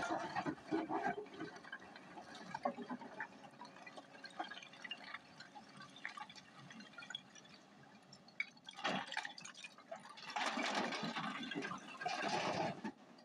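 Broken quarry stone clattering and crackling as a Hyundai 210 excavator's bucket digs into a rock pile. Louder rushes of tumbling rock follow about nine seconds in and again from about ten and a half seconds to near the end, as the load is dropped into a dump truck.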